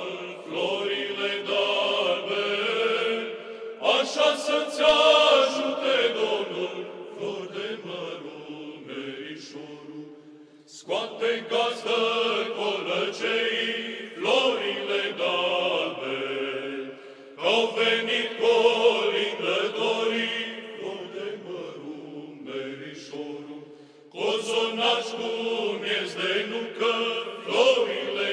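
A male vocal group of Orthodox church singers singing a Romanian Christmas carol (colindă) in a chant-like style, in phrases of a few seconds with brief breaths between them.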